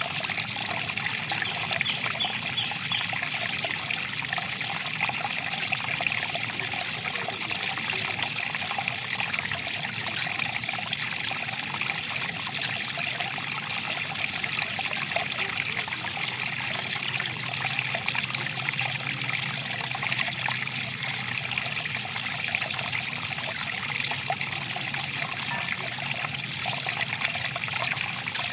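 Stream water flowing and trickling steadily over stones, with an even, fine babble.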